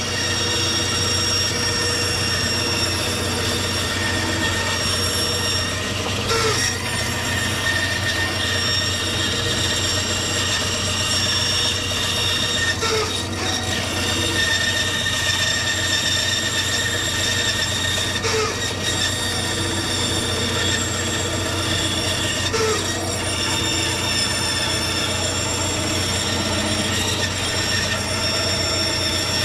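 A woodworking power tool running steadily with a high-pitched whine and a low hum while it shapes the horns of a guitar body, with small brief changes in the sound every several seconds.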